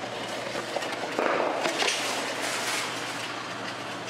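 A soda can being pulled out of a Coca-Cola vending machine's delivery bin: a sudden clatter and scrape of the can and bin flap about a second in, lasting a couple of seconds, over the machine's steady low hum.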